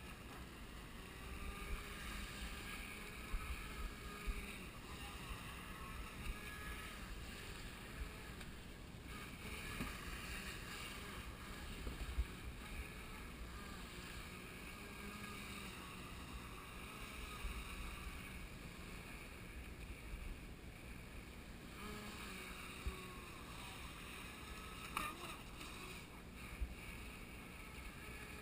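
Faint whine of a radio-controlled jet boat's 540-size electric motor, its pitch drifting up and down as the throttle changes, with wind rumbling on the microphone.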